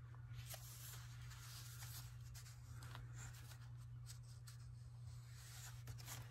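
Faint rustling and rubbing of paper and cardstock as a tag and its long paper pull-strip are handled and folded, over a steady low hum.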